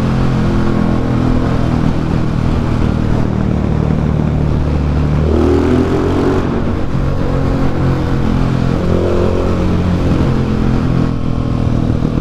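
KTM 690 SMC R single-cylinder supermoto engine running under way, loud through its exhaust with the dB-killer baffle removed, echoing inside a road tunnel. The engine note climbs about five seconds in and again near nine seconds.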